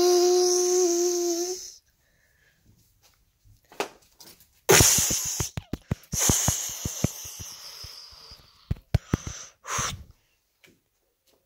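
A child's breathy, held vocal tone, a made-up sound effect, cuts off about two seconds in. After a pause comes a noisy rush crossed by rapid sharp clicks and crackles, with a last short burst near the end.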